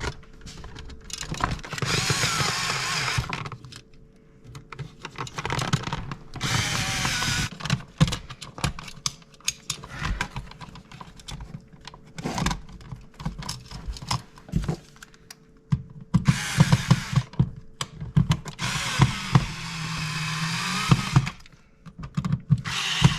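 A power drill/driver running in about four short bursts of a second or two, driving screws to mount an outlet into its electrical box, with clicks and knocks of handling between the bursts.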